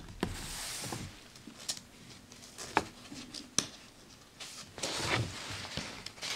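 Paper pages of a 1940 magazine being handled and a page turned: a rustle near the start, a few sharp clicks or taps in the middle, and a louder rustle of the page turning near the end.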